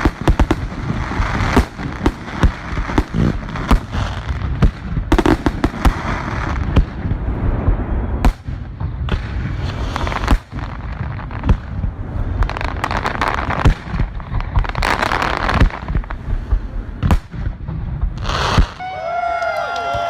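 Dense fireworks barrage: a rapid, irregular string of booms and crackling bursts that stops abruptly near the end, after which the crowd starts cheering and whistling.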